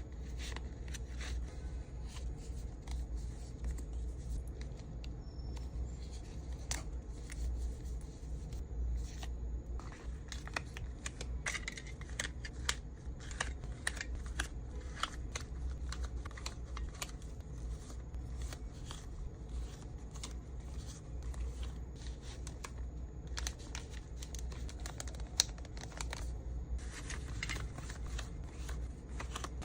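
Small items and plastic packaging being handled while packing orders: irregular light clicks, taps and crinkling, with one sharper tap near the end, over a steady low hum.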